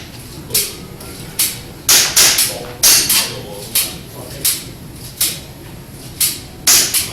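Airsoft pistol firing a string of about a dozen sharp shots, roughly two a second at uneven intervals, each with a short echo.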